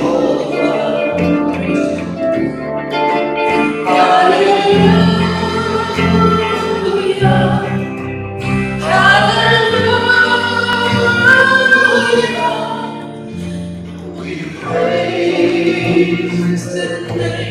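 A worship song performed live: a man and a woman singing together over a hollow-body archtop electric guitar and a bass guitar.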